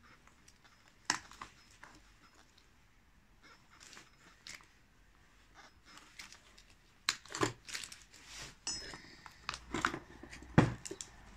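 Side cutters and gloved hands working an old, grease-packed inner CV boot and its clamp off a VW Polo driveshaft: sparse clicks and snips, getting busier over the last few seconds with a few sharper knocks, the loudest about ten and a half seconds in.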